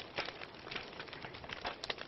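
Wood fire burning in a fireplace, crackling with irregular sharp pops over a steady hiss.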